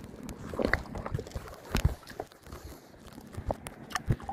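Scattered small clicks, taps and rustles as hands handle a just-caught grouper and its hooked minnow lure.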